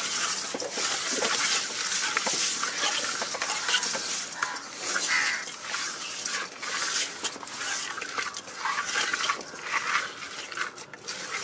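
Hands rubbing and turning wet, gritty pieces of fish against the inside of a steel bowl: a continuous scraping, squelching rustle with many small knocks on the metal.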